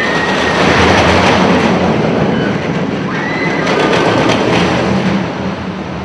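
A train running on rails rumbles past, with a steady rumble and a few brief high wheel squeals.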